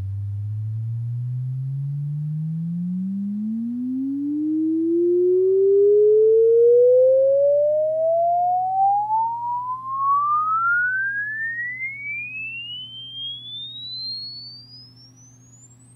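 A sine-wave frequency sweep played through a 1959 ROLA 8-ohm paper-cone woofer in free air, driven by a 3-watt single-ended 6BQ5 tube amp. A pure tone glides steadily upward from a low bass note to a high whistle. It is loudest in the middle and fades toward the top, where the woofer is not doing much at all. A faint steady hum runs underneath.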